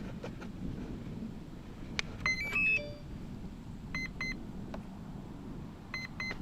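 Electronic speed controller of an electric RC plane sounding its tones through the brushless motor during throttle calibration. A click comes about two seconds in, followed by a short rising start-up tune. Two beeps follow, then another click and a run of quick, evenly spaced beeps near the end: the signals that the ESC has taken the throttle range and counted the battery cells.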